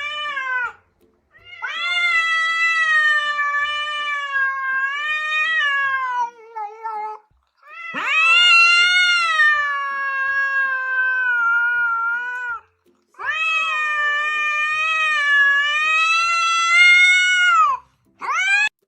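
A cat yowling in long drawn-out calls: a short cry at the start, then three long wavering yowls of about five seconds each with brief breaks between them, and a short cry near the end.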